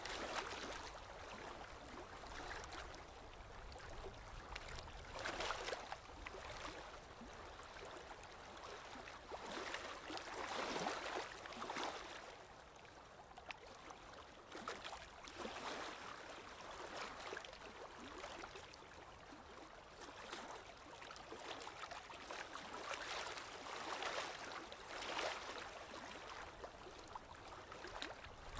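Water flowing and splashing continuously, swelling and easing every few seconds.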